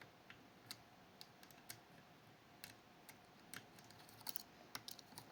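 Faint, irregular small metallic clicks of a lock pick working the levers inside a Fichet 484 lever sidebar lock, coming more often near the end.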